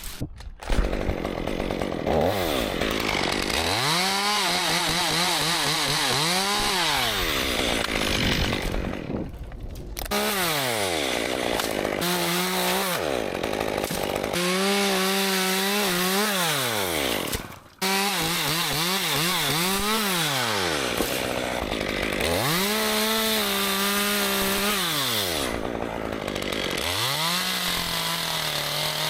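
Chainsaw cutting dead ash wood. It is throttled up to a steady high pitch for each cut, then drops back, about seven times over.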